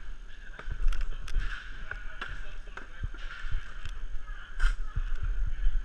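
Inline hockey play on a plastic sport-tile floor: skate wheels rolling with a steady hiss, broken by irregular sharp clacks of sticks and puck, over a low wind rumble on the microphone.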